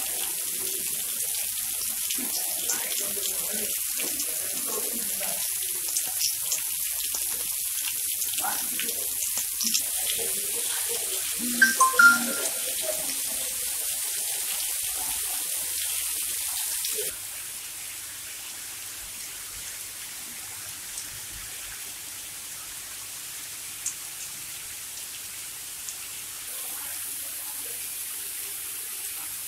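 Heavy rain falling steadily, a dense hiss, with a few short, louder sounds about twelve seconds in. A little past halfway the rain becomes quieter and steadier.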